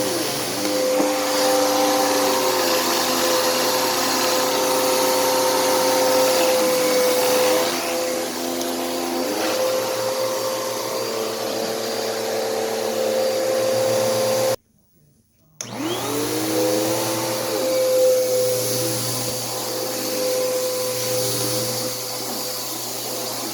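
Bissell CleanView upright vacuum running on carpet, a steady motor hum whose pitch dips and recovers now and then as it is pushed over the pile. Past the middle the sound cuts out completely for about a second, then returns with the motor winding back up.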